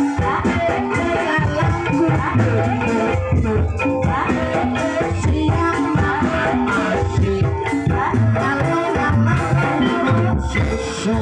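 Live ebeg dance music: a Javanese gamelan ensemble playing a dense, steady pattern of pitched metallic notes over repeated drum beats.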